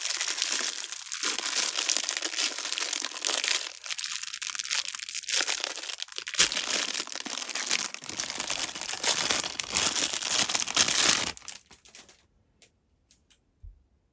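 Blind-box packaging being crinkled and torn open by hand: a dense, crackly rustle that stops suddenly, followed by a few faint clicks near the end.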